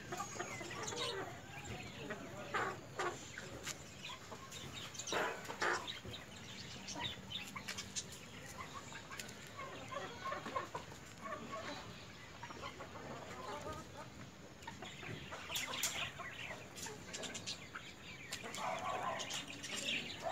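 White Leghorn chickens clucking with short, scattered calls while they feed, with sharp taps of their beaks pecking on concrete.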